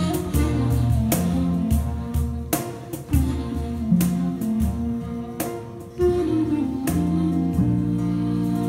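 Live band music: plucked guizouki strings and bass guitar over sustained wind and drone tones, with picked note attacks, settling into a long held chord near the end.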